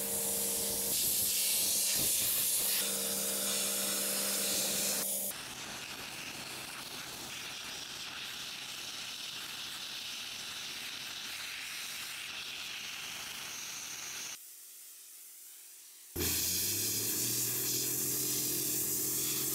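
Wet abrasive blasting nozzle spraying a steady, loud hiss of water and grit against bare metal auto parts, with a steady machine hum underneath. The hiss drops to a quieter stretch about 14 seconds in, then comes back at full strength near the end.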